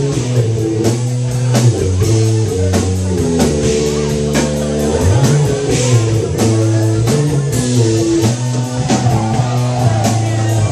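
Live rock band jamming: electric guitar playing over a drum kit keeping a steady beat, with low sustained notes underneath.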